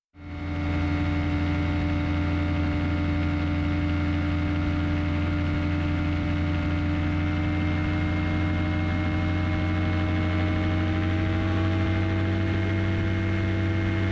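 Rebuilt Rotax ultralight engine running at a steady drone, its pitch creeping slightly higher in the second half.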